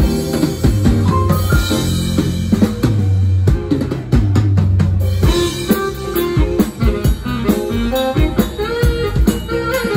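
A live band playing an instrumental piece, with the drum kit in front: snare, rim and bass drum hits in busy fills over bass and keyboard notes.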